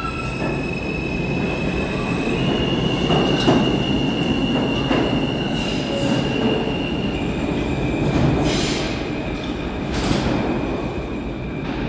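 R160 subway train pulling out of the station and rolling away down the tunnel: a steady rumble with a sustained high wheel squeal and several sharp clicks as the wheels pass over rail joints.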